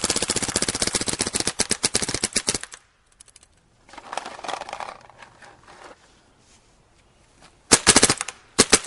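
Dangerous Power G3 paintball marker firing a rapid, continuous stream of shots that stops about three seconds in. A softer noise follows, then two short bursts of rapid fire near the end.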